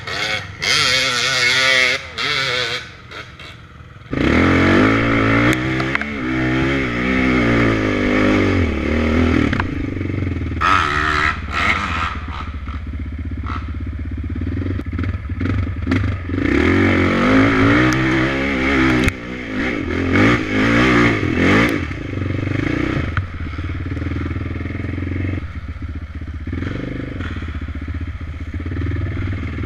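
Off-road dirt bike engines revving on a wooded trail. A lighter engine rises and falls in the first couple of seconds. From about four seconds in, a loud, close engine takes over, its pitch climbing and dropping over and over as the throttle opens and closes on the climb.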